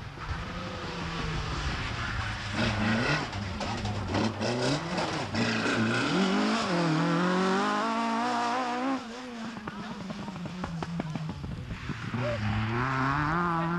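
Opel Kadett 16V rally car's four-cylinder engine revving hard on a stage, its pitch climbing and falling again several times as it changes gear.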